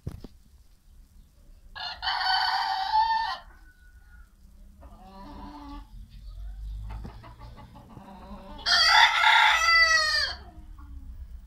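Roosters crowing: one crow about two seconds in, a fainter call around five seconds, and a louder crow near the end that trails off falling in pitch.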